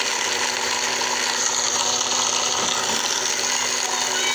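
Electric mixer-grinder running steadily at full speed, its blades chopping a dry mix of millet, wheat, rice, chickpeas and beans into coarse pieces.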